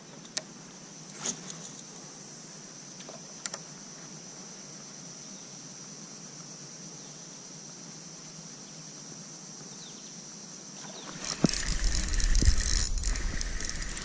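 A steady high-pitched insect drone with a few faint ticks; about eleven seconds in, louder water sloshing and knocking around the boat, ending in one sharp knock.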